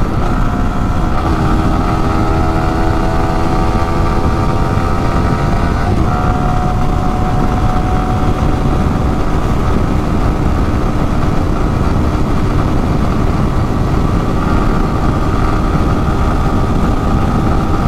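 A Yamaha R15 single-cylinder engine running steadily at cruising speed, heard from the rider's seat over a heavy low rumble of wind on the microphone. The engine note breaks briefly about six seconds in and then holds steady again.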